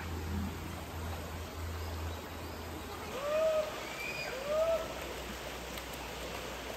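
Shallow mountain river running over rocks, a steady rush of water. A low hum fades out about three seconds in. After that come two short calls about a second apart, each rising and then falling in pitch.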